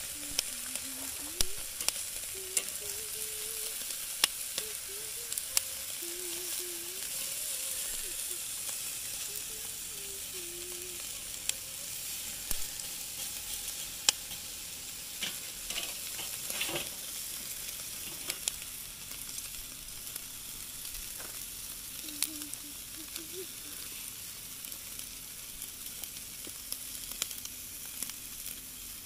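Food sizzling on a grill, a steady hiss broken by frequent sharp pops and crackles of fat.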